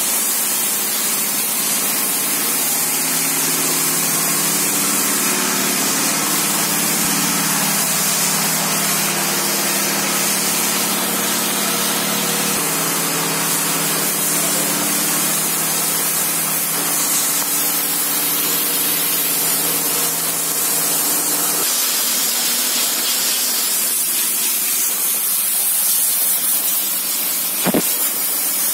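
High-pressure washer spraying water, a steady loud hiss, with a steady machine hum underneath that stops about three-quarters of the way through. A single sharp knock near the end.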